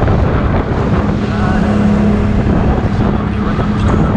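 ATV engine running steadily under way, a constant drone with a rough low rumble beneath it.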